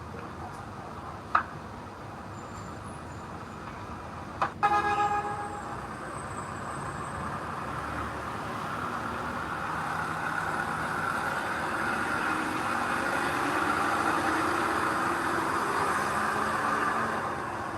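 A sharp knock, then a brief horn toot, followed by a heavy vehicle's engine running and growing louder before easing off near the end.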